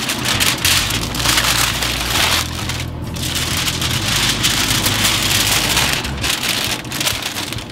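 Aluminium foil crinkling and rustling as hands fold it tightly around a rack of ribs, with short pauses about three seconds in and again around six seconds.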